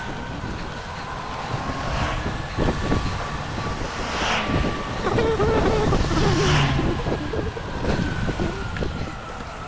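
Wind buffeting the microphone and road noise on a moving e-bike, with a faint steady whine. A motor vehicle swells past from about four to seven seconds in.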